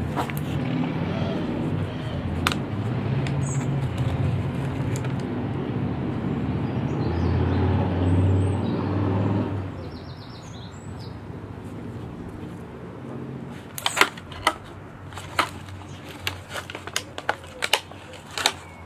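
A vehicle engine runs as a low, steady hum, swelling a little and then dropping away about halfway through. In the quieter second half come a quick string of sharp clicks and knocks from plants and a plastic pot being handled while planting.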